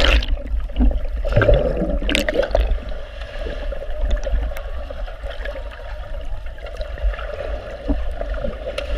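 Pool water heard with the microphone under water: a muffled, steady rumble with gurgling. There are brief splashes at the very start and again about two seconds in.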